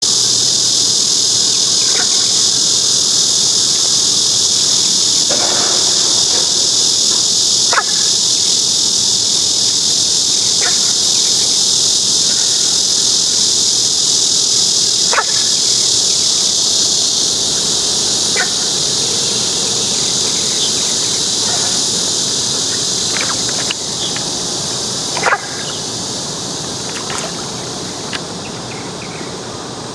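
A loud, steady insect chorus of chirring, with a few short sharp sounds over it now and then, the loudest near the end; the chorus eases a little in the last few seconds.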